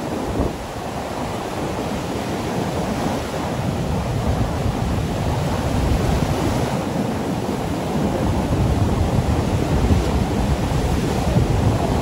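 Rough sea: rows of large waves breaking and washing up a sandy beach in a steady, heavy surf rumble, with wind buffeting the microphone.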